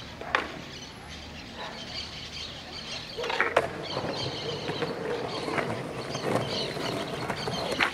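Skateboard wheels rolling over rough concrete from about three seconds in, with a couple of clicks as the rider pushes off, after a sharp knock near the start and before another clack at the very end. Birds chirp throughout.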